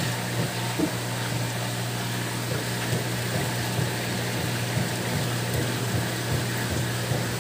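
Steady low hum of an aquarium water pump running, over an even hiss of circulating water.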